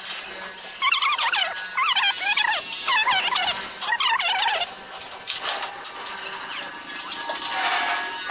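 Birds calling in quick, warbling phrases about once a second, fading over the second half.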